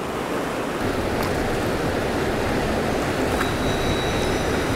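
Steady rush of a fast river running over rapids.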